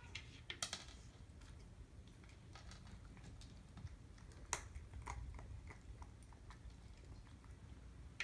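Cat eating dry kibble from a plastic slow feeder bowl: quiet crunching and irregular clicks of kibble and paw against the plastic, the sharpest about half a second in and again about four and a half seconds in.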